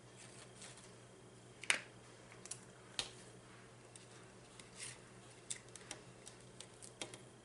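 Scattered small clicks, taps and crackles of food and packaging being handled while tacos are put together, with the sharpest click about a second and a half in and another about three seconds in.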